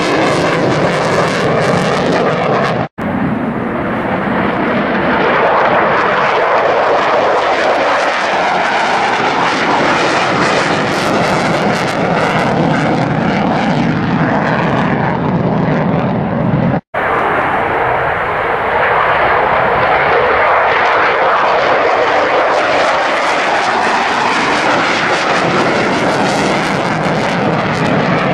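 Loud, continuous jet noise from a JASDF F-15 fighter's twin turbofan engines as it flies display manoeuvres overhead. It breaks off sharply twice, about three seconds in and again past the middle, where the recording is cut.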